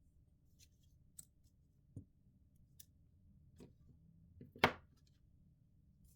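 A few small, separate clicks and taps from handling smartphone parts and small repair tools, the loudest a sharp tap about four and a half seconds in.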